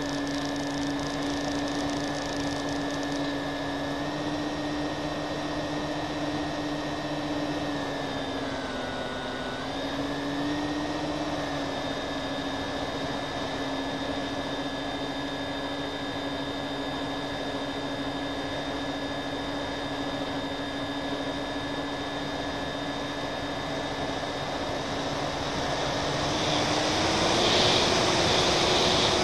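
Twin motors and propellers of a radio-controlled FPV model plane running in flight, a steady whine over a hiss of rushing air as heard from the onboard camera. The pitch dips briefly around nine seconds in and steps up, louder, near the end.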